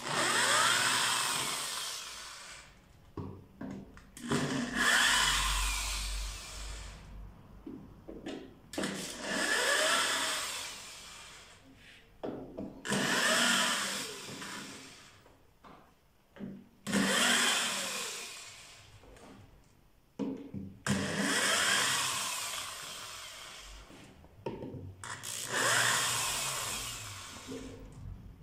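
Corded electric drill with a screwdriver bit backing screws out of a plastic speaker cabinet, in seven short runs about four seconds apart. The motor whine rises and falls in pitch within each run.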